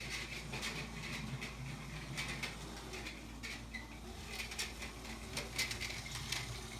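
Many small, irregular clicks and rattles over a steady low electrical hum and hiss: room sound of small hard objects being handled.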